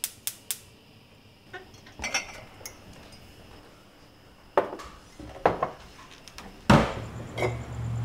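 A quick run of sharp clicks, then scattered light clinks and knocks and one loud thump near the end, followed by a car engine idling with a steady low hum.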